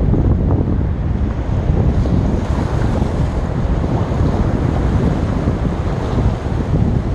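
Sea waves breaking and washing on the shore in a steady, loud rush, with heavy wind buffeting the microphone and adding a low rumble.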